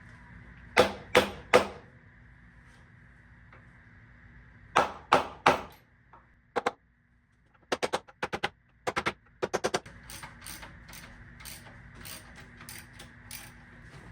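A series of sharp knocks and clicks in groups: three loud strikes about a second in, three more about five seconds in, then quick runs of clicks and lighter scattered ticks over a faint steady hum.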